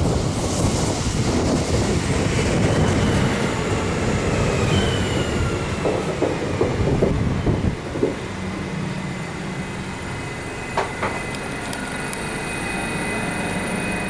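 Electric regional multiple-unit train pulling into the station, its wheels rumbling on the rails and brakes squealing with a falling pitch as it slows. About eight seconds in it comes to a stand and the noise drops to the steady hum of its electrical equipment, with a short click near the end.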